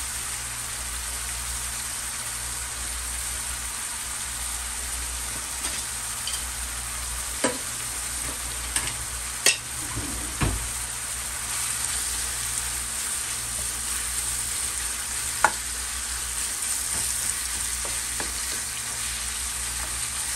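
Ground pork sausage sizzling in a nonstick frying pan: a steady frying hiss, with a few sharp clicks scattered through it.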